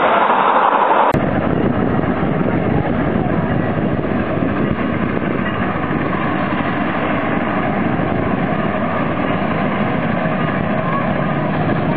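Santa Fe 3751, a 4-8-4 steam locomotive, running as it approaches hauling its passenger train: a steady, even noise.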